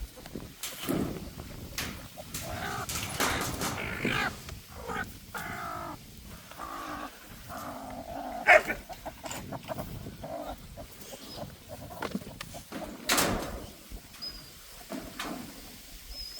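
Chickens at a hatching nest: a hen's short calls mixed with knocks and rustling, a sharp click about halfway, and a few faint high chick peeps near the end.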